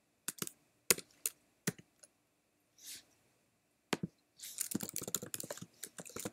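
Computer keyboard typing: a few separate keystrokes, then a quick run of key clicks from about four and a half seconds in as a word is typed.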